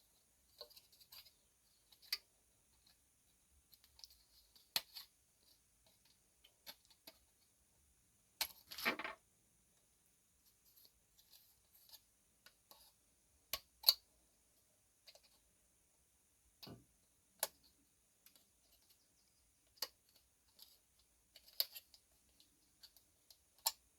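Plastic model-kit body being worked free of its sprue attachments: faint, scattered clicks and taps of hard plastic, with one longer scraping crackle about nine seconds in.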